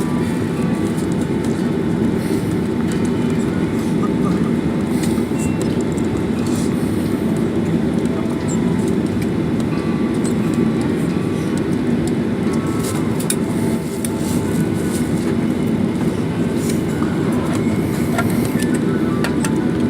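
Steady low rumble of a vehicle heard from inside its cabin, with a few faint clicks and rattles.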